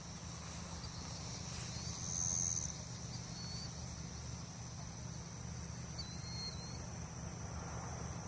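Insects trilling steadily at a high pitch, louder for about half a second around two seconds in, with a few short faint chirps over the top. A steady low rumble runs underneath.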